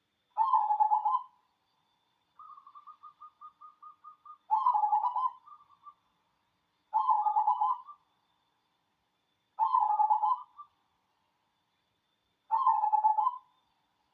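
Zebra dove (perkutut) cooing: five loud coo phrases of about a second each, repeated every two and a half to three seconds, with a fainter run of quick, evenly spaced notes between the first and second.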